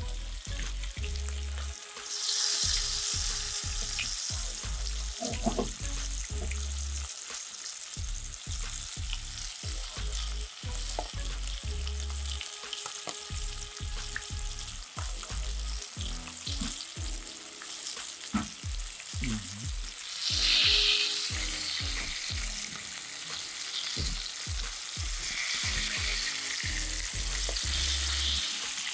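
Small flour-dredged river fish frying in oil in a frying pan: a steady sizzle with scattered light clicks and knocks of handling. The sizzle flares up louder twice, about two seconds in and about twenty seconds in, as fresh pieces go into the hot oil.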